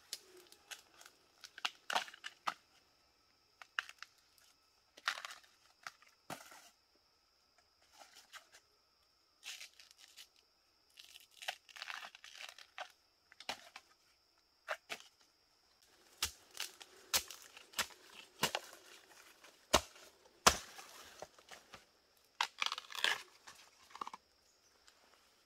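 Tough papery husk sheaths being ripped and stripped off fresh bamboo shoots by hand. The rips and crackles come irregularly and are punctuated by sharp snaps, which are loudest and most frequent in the second half. A faint steady high tone sits behind them.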